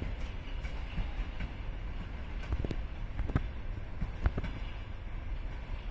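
Railway car rolling slowly over the tracks with a steady low rumble, broken by sharp paired knocks as the wheels cross rail joints and points.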